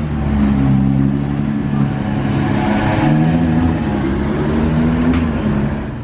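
Sports car engine running loud as the car pulls away, its deep note rising and falling in pitch around the middle.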